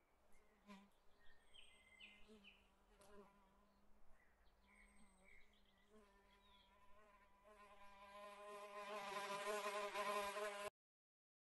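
A buzzing insect in flight, faint at first and growing steadily louder over several seconds before cutting off abruptly near the end, with faint bird chirps in the background during the first half.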